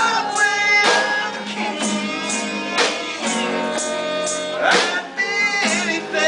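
A small acoustic band playing a song live: strummed acoustic guitar, bowed fiddle and sharp snare drum hits, with singing.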